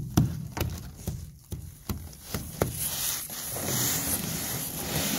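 Ice from frozen spray being chipped and scraped off an aluminum boat: a string of irregular sharp knocks, then a longer stretch of scraping near the end.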